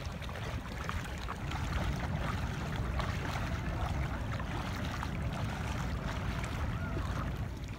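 Shallow seawater splashing and lapping as a person wades out through it, with many small irregular splashes over a steady low wind rumble on the microphone.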